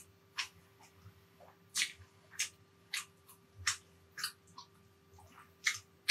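Eating sounds of a person chewing: wet mouth smacks and clicks, about eight sharp ones at irregular intervals.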